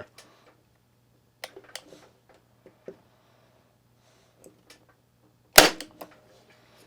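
Parkside PET25C3 corded electric 18-gauge brad nailer firing one brad into pine: a single sharp bang about five and a half seconds in, after a few faint clicks as the tool is set against the wood.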